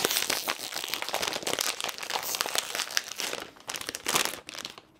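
Plastic potato chip bag being handled and crinkled in the hands, an irregular crackling that comes and goes with short lulls.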